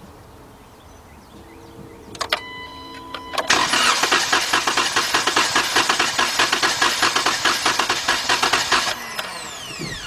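Starter cranking the 2012 Dodge Durango's 3.6-litre V6 over without firing, as for a compression test, with a fast even beat for about five seconds. A click comes just before it. When the starter is released, its whine falls away.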